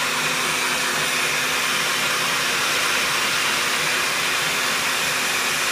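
Veggie Bullet electric spiralizer's motor running steadily while a yellow squash is pushed down its feed chute with the plunger and cut into ribbons.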